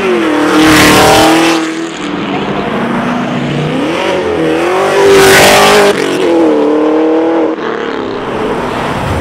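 A drift car's engine revving hard in repeated surges as it slides. The loudest surges come about a second in and again around five seconds in, each held briefly at high revs before dropping back.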